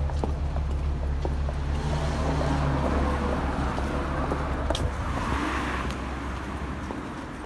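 Car running, heard from inside the car as a steady low drone that dies away about six seconds in.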